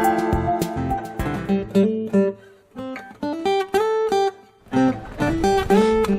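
Background music on acoustic guitar, several guitar parts layered, picking out melody notes and strummed chords, with two short breaks in the phrase.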